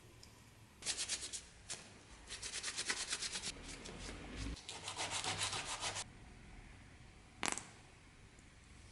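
Hand sanding: quick back-and-forth strokes of sandpaper, several a second, in three runs of about a second each, with one more short stroke near the end.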